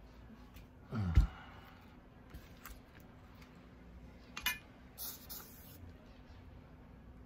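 Small workbench handling sounds during wire tinning with a soldering iron: a short thump about a second in, then light clicks and clinks of small tools, and a brief hiss about five seconds in.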